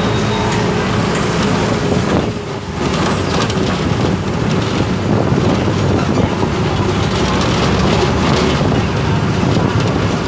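Engine and road noise of a moving city bus heard from inside the cabin, loud and steady, with a brief lull about two seconds in.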